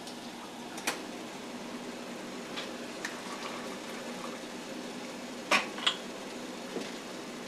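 Apple jelly bubbling at a steady boil in a stainless pot, with a few light clinks of glassware: a glass measuring cup knocking against the plastic funnel and jars as the hot jelly is poured. Two sharper clinks come close together about three-quarters of the way through.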